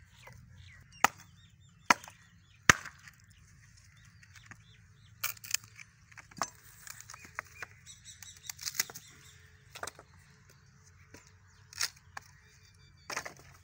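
Firewood being chopped with a cleaver: sharp wooden strikes, the three loudest about a second apart near the start, followed by lighter, irregular knocks and taps.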